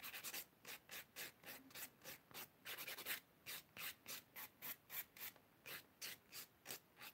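A nail file rasping across an acrylic nail in quick back-and-forth strokes, about three a second, quiet and even.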